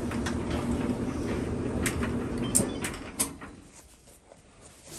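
Maytag 3000 series gas dryer running, its drum turning with a steady rumble and scattered clicks on a newly fitted pulley wheel and belt, after a broken pulley had left it unable to spin. The running stops about three seconds in.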